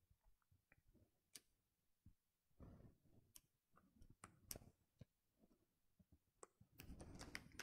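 Faint scattered clicks and soft fingertip handling noise as the screen's flex-cable connectors are pressed onto an iPhone 12 Pro Max logic board, with a quick run of clicks near the end.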